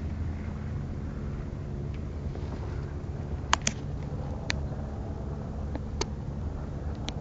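Steady low outdoor rumble, like wind on the microphone, with a few short sharp clicks from about halfway through: a quick pair, then three single clicks spaced about a second apart.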